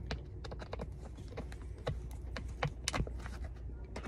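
A screwdriver working screws into the plastic case of a chalk line reel as it is put back together: irregular sharp clicks and ticks of metal against plastic, over a low steady hum.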